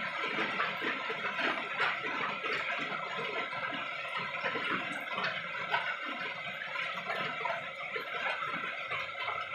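A paintbrush swishing and scrubbing against wooden furniture as paint is brushed on, in quick irregular strokes.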